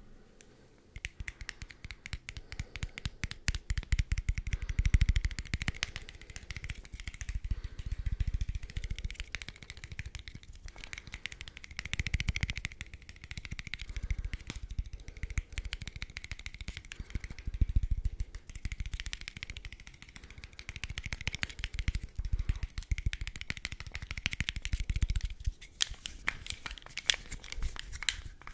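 Rapid tapping and handling of an old Russian camera lens, a dense run of small clicks with heavier low bumps every few seconds.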